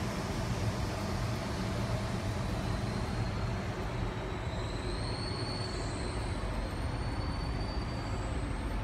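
Steady rumble of a Sydney Trains Tangara electric train running along the track, heard from inside the carriage. About halfway in, a faint high whine rises and falls gently.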